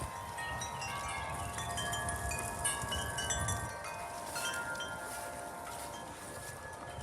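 Several wind chimes ringing in gusty wind, many tones of different pitches struck at random and overlapping, over a low rumble of wind on the microphone.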